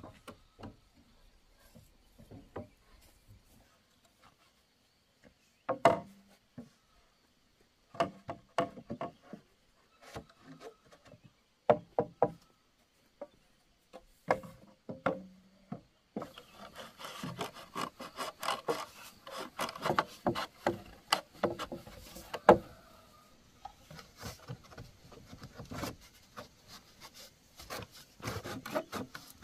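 Wood being worked by hand: scattered separate knocks at first, then about halfway through a busier stretch of rubbing and scraping with many small clicks.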